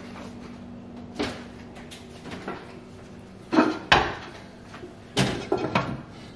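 Wall oven door opened and a clay pot set onto the oven's wire rack: a series of separate knocks and clunks, the loudest about four seconds in and again just after five seconds.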